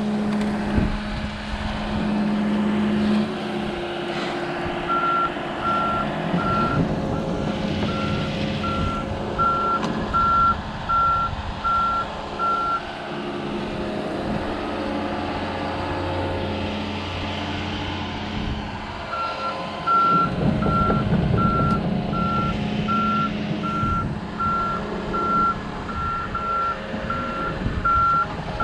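Tracked excavator's travel alarm beeping at about two beeps a second over its diesel engine running. The beeping stops about 13 seconds in and starts again around 19 seconds as the machine moves again.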